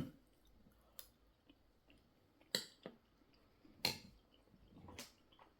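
Cutlery clicking against a plate while pasta is being eaten: about five sharp, separate clicks spread over a few seconds.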